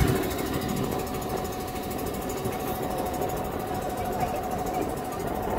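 SeaLegs amphibious boat's motor running steadily, a constant rumble with a steady higher hum over it.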